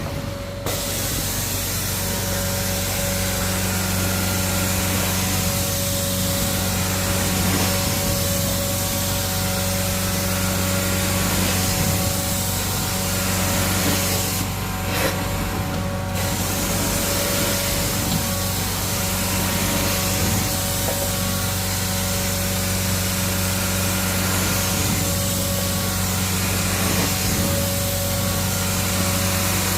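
Carpet-cleaning extraction machine running steadily, its vacuum and spray hissing loudly over a constant motor hum as the wand works the carpet. The hiss cuts out briefly about halfway through, then resumes.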